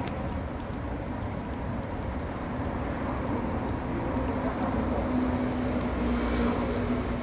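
Steady engine drone, with a low hum that grows stronger about five seconds in.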